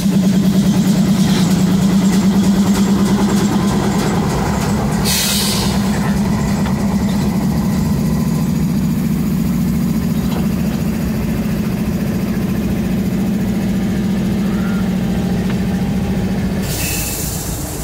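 GE Dash 9-44CW diesel locomotive's V16 prime mover running as the unit rolls slowly past close by: a loud, steady low drone with a fast flutter that drops away near the end. Brief hisses about five seconds in and near the end.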